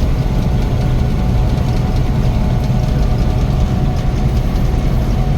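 Gleaner N6 combine running steadily at harvest, a loud constant low engine hum with a faint steady whine above it.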